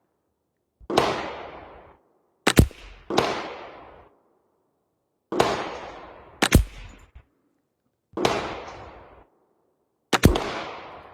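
Weatherby XXII semi-automatic .22LR rifle fired as a string of about seven single shots at uneven spacing. Each sharp crack rings on for about a second.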